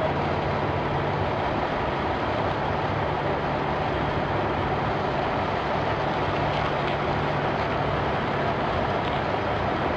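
Vehicle engine running steadily under a constant wash of road and wind noise, with a low, even hum.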